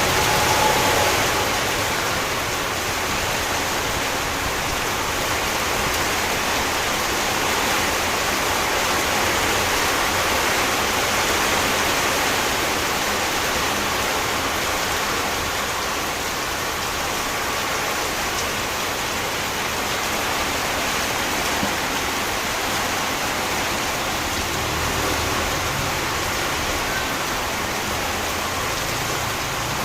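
Heavy rain pouring down steadily, an even hiss that holds at the same level with no breaks.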